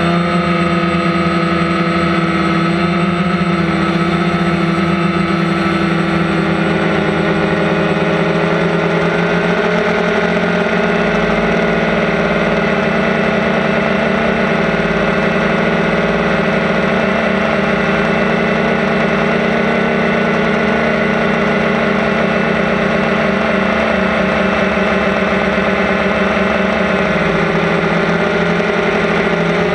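DJI Phantom quadcopter's four electric motors and propellers whirring steadily in flight, heard close up through the GoPro mounted beneath it; the pitch shifts slightly now and then as the motor speeds change.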